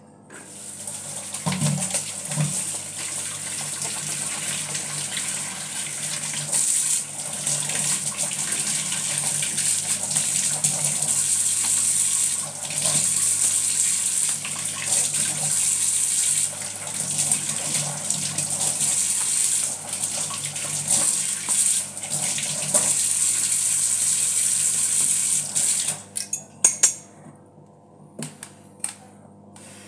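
Kitchen tap running steadily into a plastic colander while vegetable pieces are rinsed by hand. The water cuts off near the end, followed by a few sharp knocks of the plastic colander being handled.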